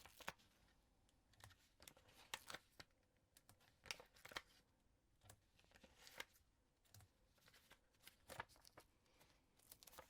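Faint rustles and light taps of card and paper pieces being handled and placed, as short scattered clicks every second or so.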